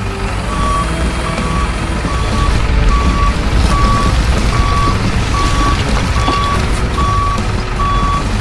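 Truck reversing alarm beeping steadily, about one beep every three-quarters of a second, over a low truck engine rumble.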